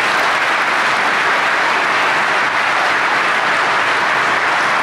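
Audience applauding, a steady, loud clapping.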